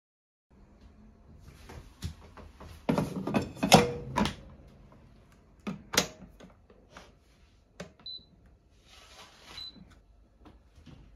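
A Haier rice cooker being set to cook: a burst of clatter and knocks, a sharp click, then its buttons pressed, with two short high beeps near the end.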